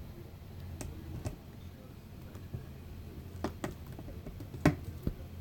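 Hand handling a clear plastic shoe box: a few scattered light clicks and taps of plastic, the loudest a little under five seconds in, over a low steady hum.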